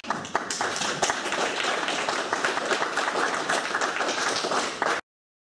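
Audience applauding, many hands clapping, cut off abruptly about five seconds in.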